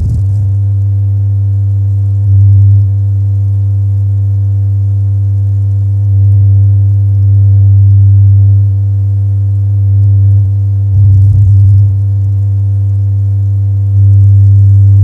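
Experimental drone music from a cassette tape: a loud, steady low hum with a stack of overtones above it, swelling louder several times.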